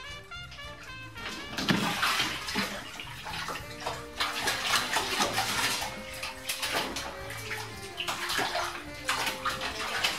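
A cat splashing in a bathtub full of water. The splashing starts suddenly and loudest about two seconds in, then comes in further bursts of sloshing as the cat thrashes and scrambles to climb out over the tub's edge.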